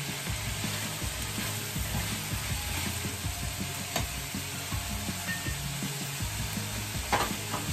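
Minced pork sizzling as it fries in a nonstick pan, a steady hiss, with a couple of light knocks about four seconds in and near the end.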